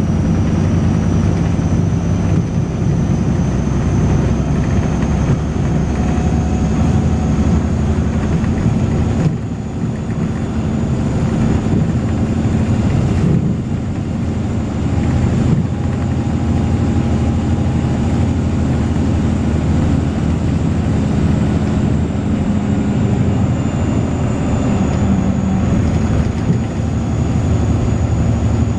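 Volvo B6LE bus running under way, heard from on board: a loud diesel engine rumble through the ZF automatic gearbox, with a thin, steady high-pitched whine above it that drifts slowly upward in pitch.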